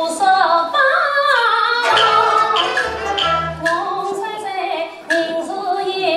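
A woman singing Yue opera, with a traditional Chinese opera band of bowed strings, yangqin dulcimer, cello and double bass accompanying her.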